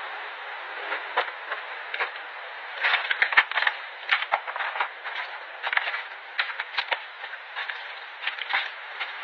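Rubbish being gathered by hand and dropped into a plastic wastebasket: irregular clicks and rustles of plastic wrappers, cups and scraps, thickest about three seconds in, over a steady background hiss.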